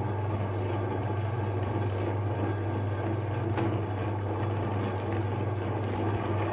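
Electric meat grinder's motor running steadily with a constant low hum, and a faint click about three and a half seconds in.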